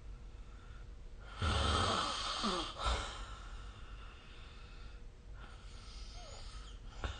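Snoring in sleep: one loud, low snore about a second and a half in, lasting about a second and a half, its pitch falling near the end. A fainter breath follows later, and there is a short click just before the end.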